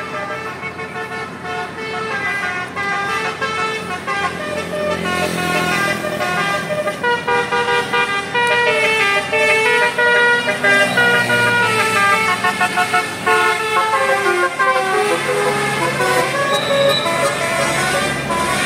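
Tour bus's Basuri-type 'telolet' musical horn playing a long melody, several horn tones stepping up and down together in phrases. It gets louder about four seconds in.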